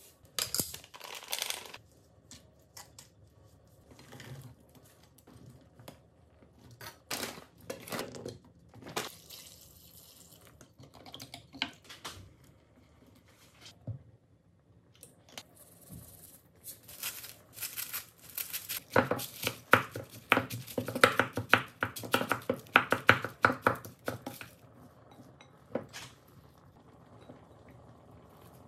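Kitchen food-preparation sounds: a metal spoon scraping and tapping in a frying pan and packaging rustling, then scattered clinks and handling noises. About two-thirds of the way through there is a dense run of rapid clicking and scraping that lasts several seconds.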